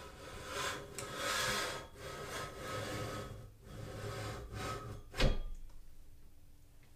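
Porter-Cable floor drill press table and bracket being shimmied down the steel column: metal scraping and rubbing in uneven stretches, then one sharp knock about five seconds in.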